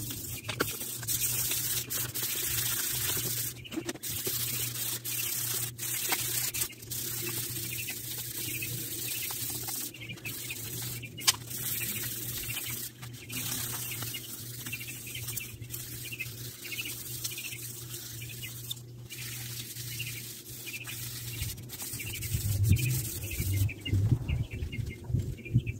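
1,000-grit sandpaper rubbed by hand along the metal shaft of an Echo SRM-210 string trimmer, a steady hissing scrape of repeated strokes as the shaft is polished. Louder low bumps come near the end.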